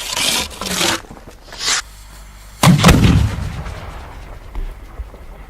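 Large 6-inch aerial firework shell going off: a few short hissing noises, then a single loud boom about two and a half seconds in that rumbles away over the next couple of seconds.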